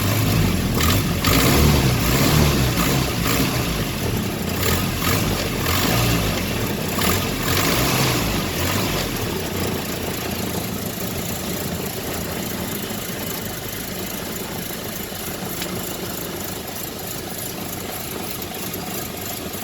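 1961 Land Rover Series II's 2.25-litre petrol four-cylinder engine running, its speed varying over the first half and then settling to a steadier, quieter idle. It carries a weird intermittent noise that the owner hopes isn't a rod knock and later puts down to a tapping from the rockers.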